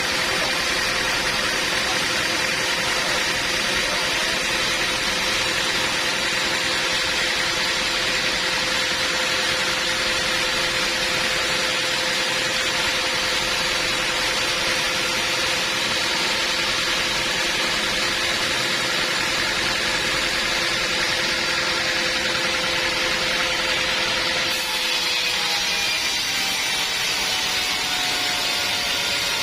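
Band sawmill machinery running steadily with a constant hum and whine. About 25 s in, the sound changes and a tone starts falling slowly in pitch.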